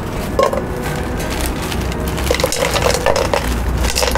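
Metal cooking utensils clanking and scraping against a pan as food is stirred and tossed, over a steady low rumble.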